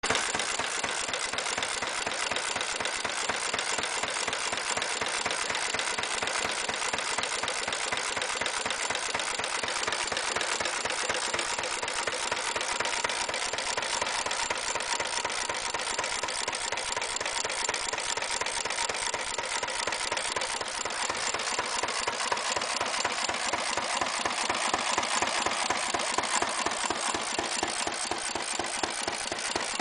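Lion D Type stationary engine of about 1924, a single-cylinder, throttle-governed petrol/paraffin engine, running steadily with an even, rapid exhaust beat.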